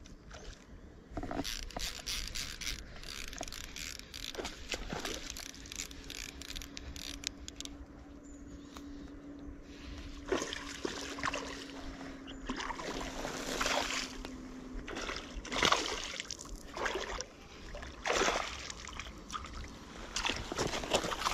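A hooked bass thrashing and splashing at the water's surface while it is played and reeled in to the shore, in a run of irregular splashes and sloshes. A faint steady hum sits under the first two-thirds.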